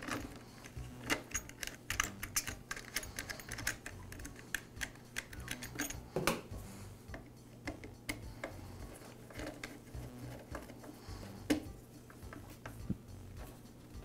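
Irregular small clicks and taps of plastic and metal as a blower's plastic air filter base and carburetor are fitted by hand and screwed down with a hand screwdriver. Two single sharper knocks stand out, about six seconds in and near eleven and a half seconds.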